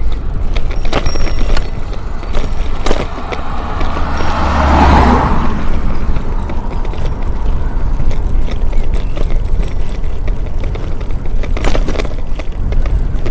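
Bicycle riding over rough, patched asphalt, with wind buffeting the microphone as a constant low rumble and the bike and camera rattling and knocking over bumps. About four to six seconds in there is a louder rushing swell.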